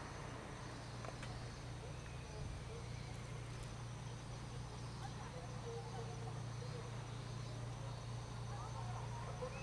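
Steady low drone of a sightseeing boat's engine, with faint distant voices and short scattered calls over it.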